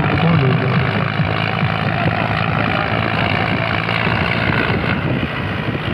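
Steady running noise of vehicles on the move: engine hum with road and wind noise.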